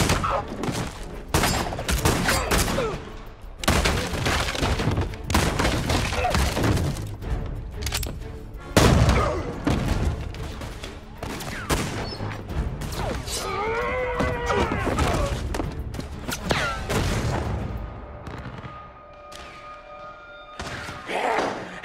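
Film gunfight sound: heavy revolver and rifle fire, many shots in fast clusters, over an orchestral score. Midway a wavering cry rises and falls. Toward the end the shooting thins out under held music notes before another loud shot.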